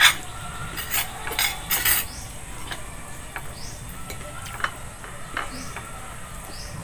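Clinks and knocks of plates, bowls and utensils being handled at a meal, loudest in the first two seconds, then a scatter of lighter ticks.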